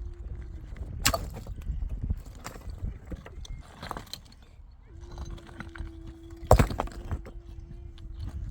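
Several sharp knocks, the loudest about two seconds before the end, over a low rumbling background, with a steady hum stopping just after the start and coming back about halfway through.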